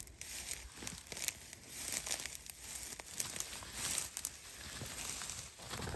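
Dry reeds and cattail stalks rustling and crackling as someone walks through them, brushing them aside, with irregular snaps and swishes.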